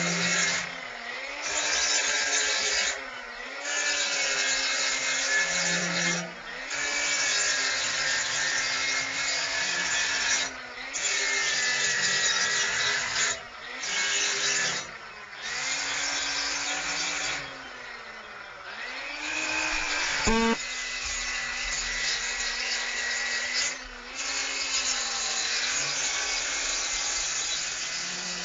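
Electric grinder grinding a forged steel gig in repeated passes of a few seconds, its motor pitch sagging under load and recovering in the short pauses between passes. A single sharp click about twenty seconds in.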